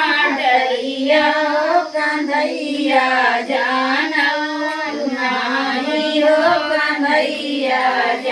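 Women singing a sohar, the traditional folk song sung to celebrate a childbirth, in high, long-held, wavering voices with no drum beat.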